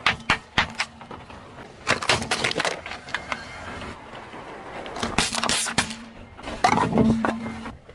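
A car tyre rolling slowly over small objects on asphalt and crushing them: laundry detergent pods burst under it, then small foil-lidded tins of meat paste crumple and split. The crushing comes in several short bursts of crackling and popping.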